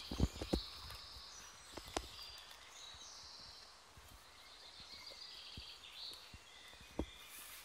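Songbirds singing faintly in the trees, a thin warbling chatter, with a couple of dog paw steps on the gravel track in the first second and a single sharp tap about seven seconds in.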